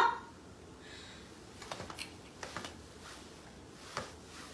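A few light clicks and taps from a mini stepper as its pedals start to move under foot: a small cluster about two seconds in, another shortly after, and a single click near the end.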